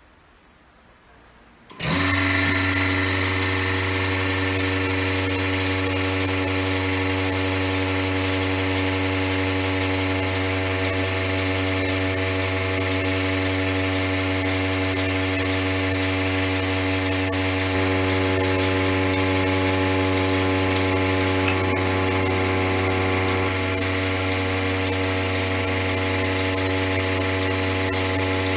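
Electric vacuum pump of a single-cow milking machine switched on about two seconds in, then running steadily with a loud, even motor hum.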